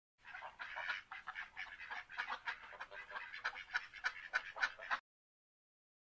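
Duck quacking in a quick run of short calls, about five or six a second, for roughly five seconds.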